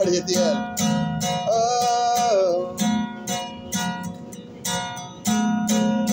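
Acoustic guitar strummed in a steady rhythm, about two strums a second, in a song's instrumental outro. A short wordless sung note is held about one and a half seconds in.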